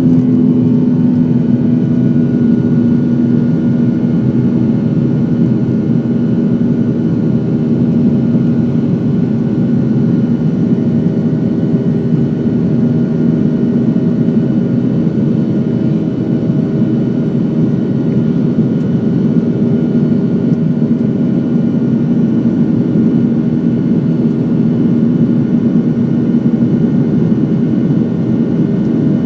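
Boeing 737-900's CFM56 jet engines droning steadily in the climb after takeoff, heard inside the passenger cabin as a low rumble with a few steady hum tones. The tones settle slightly lower in pitch in the first couple of seconds.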